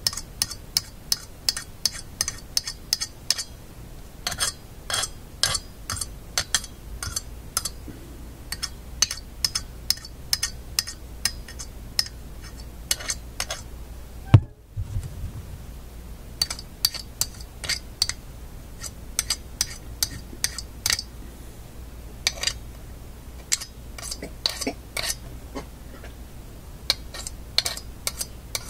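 Small metal magnet clicking and snapping against a metal piece again and again while being re-magnetized: sharp, irregular clicks, several a second, in short runs. There is a single low thump about halfway through.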